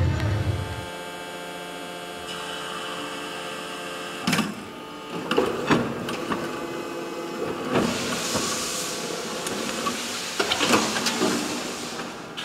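Hydraulic die-casting machine for aluminium brake shoes running: a steady hum made of several held tones, with metallic clanks a few times and a short stretch of hiss about two-thirds of the way through.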